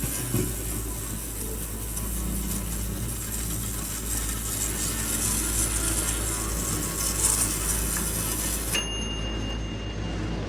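Ultrasonic cleaner running with a steady low hum and a hiss, cleaning a freshly cast sterling silver ring. Near the end the sound changes: the hiss thins out and a steady high tone comes in.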